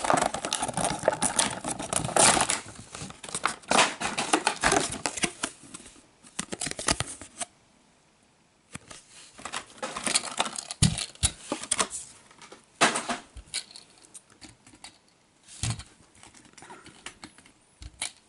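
Clear plastic blister packaging and its card backing being torn open and handled: dense crackling and crinkling, a short pause about halfway, then more scattered crinkles with two soft thumps.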